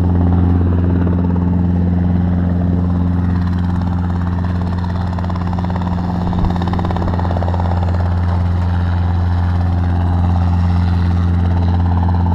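An engine running steadily at idle: a loud, even, low drone that does not change in pitch.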